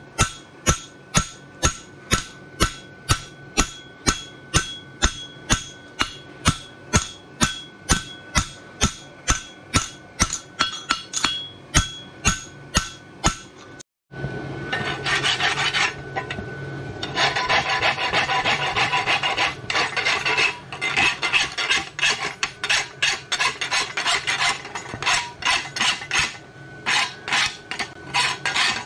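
Steady hand-hammer blows on a steel bar-shoe horseshoe on an anvil, about two strikes a second, each with a bright metallic ring, as the shoe is hammered flat. About halfway through the sound cuts briefly, then rapid rhythmic scraping of metal on the steel shoe follows, like filing or rasping.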